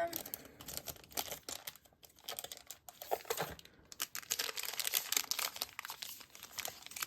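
Packaging being handled: irregular crinkling and rustling with small clicks, pausing briefly a couple of times.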